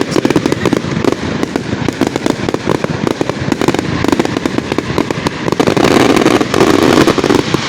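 Fireworks display going off in a dense, rapid barrage of bangs and crackle. It grows louder and thicker in crackle from about six seconds in.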